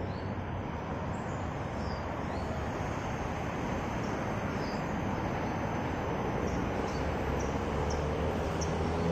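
Steady noise of nearby road traffic, growing slightly louder toward the end, with a few faint, short bird chirps above it.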